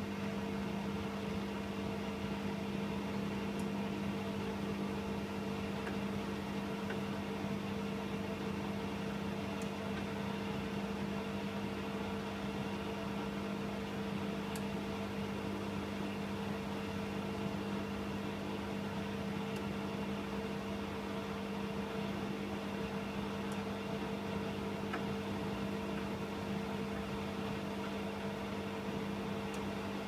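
Bosch Maxx WFO3274EX front-loading washing machine running mid-cycle, its drum turning wet laundry in water: a steady, even machine hum with a low drone, unchanging throughout.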